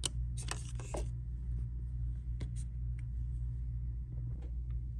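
Packaging of an earbuds unboxing being handled: a quick cluster of crinkles and clicks in the first second, then scattered light clicks, over a steady low hum.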